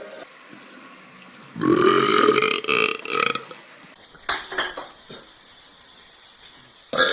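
A man's loud, drawn-out burp on command, beginning about a second and a half in and lasting nearly two seconds, followed by a shorter, rougher sound around four seconds in. Another loud burp starts right at the end.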